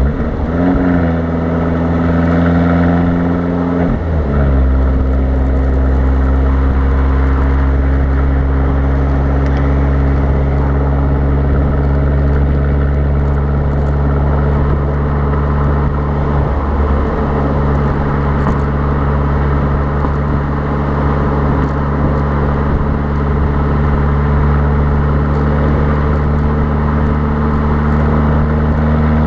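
Fiat Abarth 595's 1.4-litre turbocharged four-cylinder engine and exhaust at motorway speed, heard from beside the rear number plate: a steady drone whose note climbs just after the start and dips briefly about four seconds in and again past the middle. Wind noise on the microphone sits under it.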